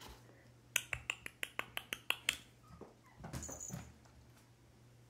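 Kittens scrambling after a tossed toy on a hardwood floor: a quick run of about ten light, sharp clicks over a second and a half, then a brief soft scuffle a little past the middle.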